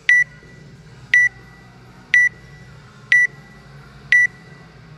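Electronic countdown timer beeping before a workout start: five short, high beeps, one each second.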